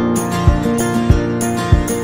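Background music with a steady beat: held pitched notes over a low drum thump about every 0.6 seconds.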